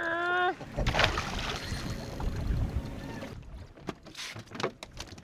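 Wind and water washing against a small boat's hull. A brief pitched voice cry comes right at the start, and scattered light clicks and knocks follow in the quieter second half.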